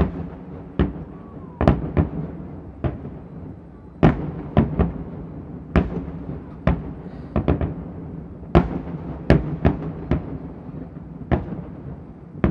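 Fireworks display: an irregular run of about twenty sharp bangs from aerial shells bursting, some close together, over a constant low rumble.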